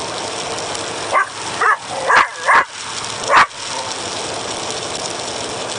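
A dog gives five short, high yips and whines, starting about a second in and ending around three and a half seconds in, over the steady running noise inside a tow truck's cab.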